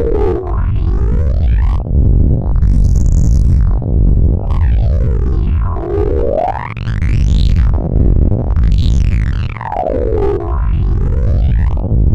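Loud synthetic sound effects built in Audacity: a heavy, distorted low drone under several tones that sweep down and back up in pitch, crossing each other, the sweep pattern recurring every few seconds.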